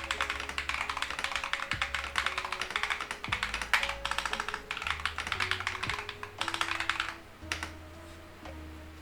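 Fast typing on a mechanical keyboard with Akko Lavender purple switches in a Redragon K617 board, a quick run of clacking keystrokes over background music. The typing stops about seven seconds in, leaving the music alone.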